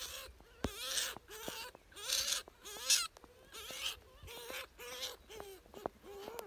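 European polecat kits calling from their den: a steady run of short, bending squeaky cries, with several short hissy bursts and a few sharp clicks in between.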